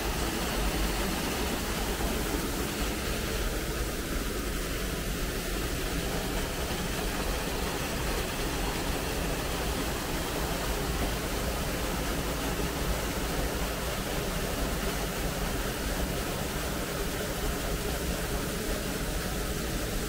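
Steady rushing of an artificial waterfall cascading down a rock face.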